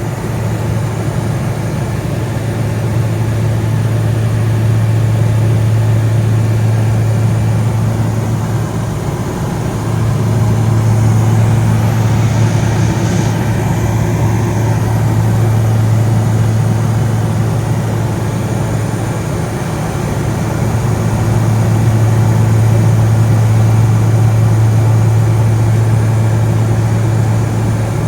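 Light aircraft's engine and propeller running steadily, a loud low drone with a constant hum that eases slightly twice and comes back.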